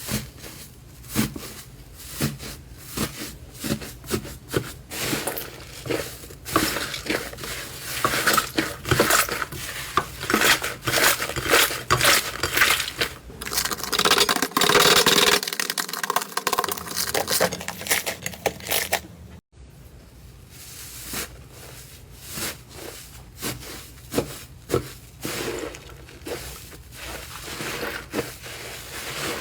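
Slime being squeezed and worked by hand, giving rapid clicking, popping and crackling, loudest and densest through the middle. The sound breaks off about two-thirds of the way through, then softer crackling and pops follow.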